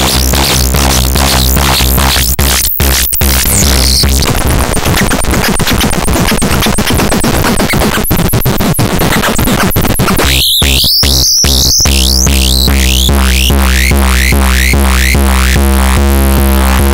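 Eurorack modular synthesizer patch built around a Schlappi Engineering 100 Grit feedback and distortion module, giving harsh, noisy feedback tones over a steady low drone with a fast repeating pulse. The sound cuts out briefly a few times, and rising chirps come in about ten seconds in, as the knobs and patch points are worked by hand.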